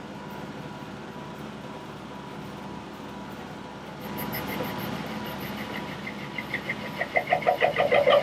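1941 South Bend 13-inch lathe running steadily while turning a sawmill blade guide roller. About halfway through the sound grows louder, and near the end a rhythmic pulsing squeal from the cut sets in and builds, about five or six pulses a second.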